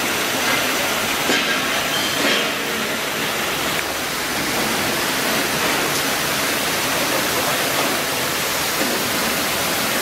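Industrial stainless-steel conveyor washing machine running with a steady hiss.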